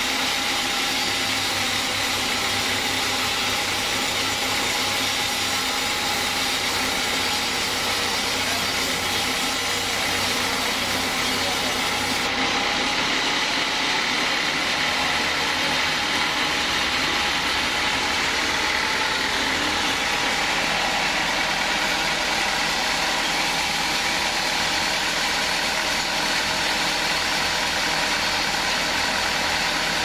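Band sawmill running steadily, its steel band blade cutting through a log, with a slight change in tone about twelve seconds in.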